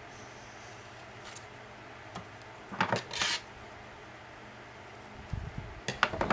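Small hard craft tools being set down and picked up on a glass craft mat: a few light clicks, a short clatter about three seconds in, and a knock and sharp clicks near the end.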